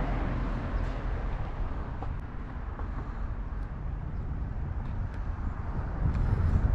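Wind buffeting a phone microphone outdoors: a steady low rumble, a little stronger near the end.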